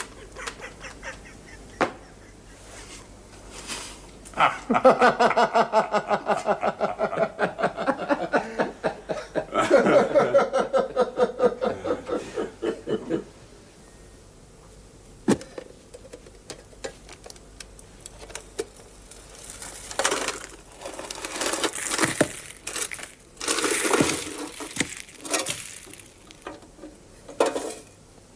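Loud laughter in two long bouts of rapid, pulsing ha-ha sounds. Scattered rustling and crinkling follows near the end.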